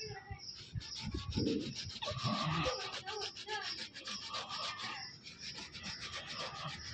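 Terry cloth rag rubbing briskly back and forth over a chrome Volkswagen boot emblem in quick, rhythmic strokes, wiping off an acid cleaner that has soaked in to lift fungus stains. The strokes grow softer after about five seconds.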